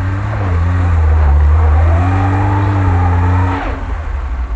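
Lada Niva's engine revving under load as the 4x4 pushes through slushy snow. The pitch climbs for about a second and a half, then falls away sharply near the end as the throttle is lifted.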